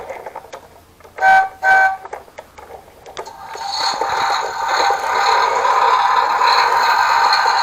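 Toy bus's electronic horn sounding two short toots from its small speaker about a second in, then its sound chip playing a recorded engine sound that builds up over a second or so and runs on steadily.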